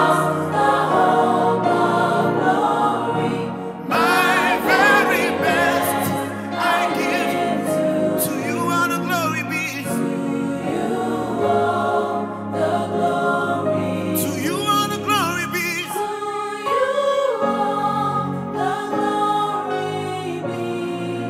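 Live gospel worship song sung by a male lead singer and backing singers in harmony, the lead voice sliding through wavering runs over sustained chords.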